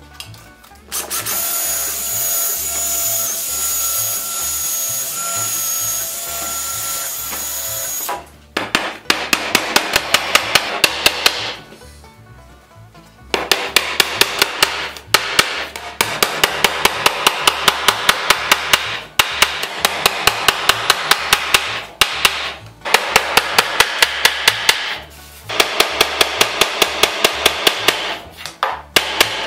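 Claw hammer driving small nails into wooden wagon floorboards: rapid, evenly spaced taps in runs of several seconds, with short pauses between runs.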